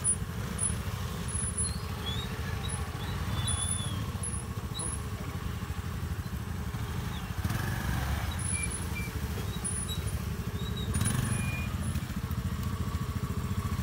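Small scooter engines running at low speed on a rough dirt trail, a steady low rumble with fast even firing pulses, with short high chirps scattered over it.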